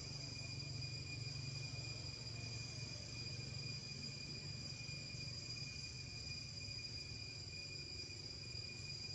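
Steady, unbroken high-pitched drone of insects in the forest, over a low background rumble.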